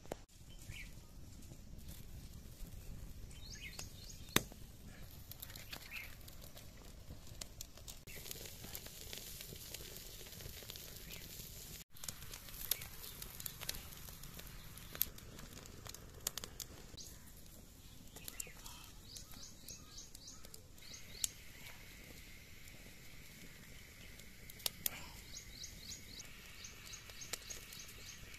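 Birds chirping in repeated quick series of short high calls over low outdoor background noise. A small wood fire adds scattered sharp clicks and crackles.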